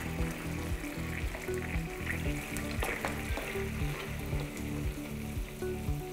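Olive oil and a splash of hot water sizzling steadily in a stainless steel frying pan, frying a garlic clove, parsley stems and chili flakes, with background music underneath.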